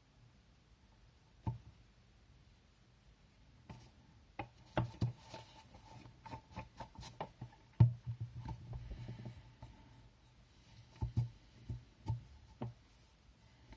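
Scattered clicks and light knocks from handling the small fan motor and its parts while silicone lubricant is worked into the bearings, in irregular clusters with the loudest knock about eight seconds in.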